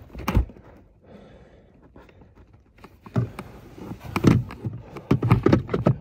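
A single click, then a pause, then a run of plastic knocks and clunks from hands working the small auxiliary battery back into its clip holder behind a car's glove box.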